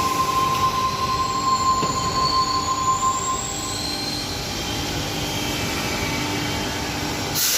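Suburban electric train's wheels squealing on the rails: a high steady squeal that stops about four seconds in, over the rumble of the moving train. A short hiss near the end.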